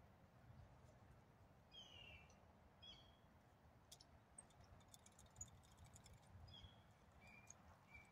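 Near silence with a few faint short bird chirps spaced through it, and a brief run of faint clicks in the middle.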